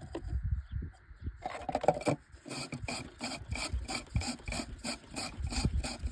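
Handling noise: a hand or sleeve rubbing against the phone's microphone in rhythmic strokes, about three a second, over a low rumble.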